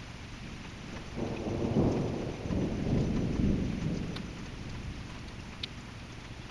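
Thunder rumbling over steady rain: the rumble builds about a second in and dies away a few seconds later, with a few faint sharp drips ticking on top.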